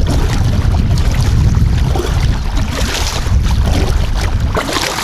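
Double-bladed kayak paddle dipping and splashing in the water stroke after stroke. Wind rumbles on the microphone until shortly before the end.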